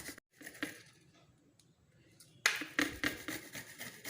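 Roasted, peeled ginger root being grated on a fine-mesh grater: quick repeated rasping strokes that stop just after the start and resume about two and a half seconds in.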